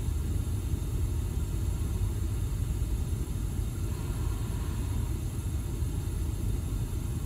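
Steady low rumble with a hiss and a faint high whine over it: the recording's background noise, with no distinct event.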